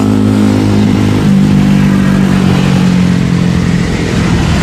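A vehicle engine running at high revs with a steady pitch that steps up about a second in.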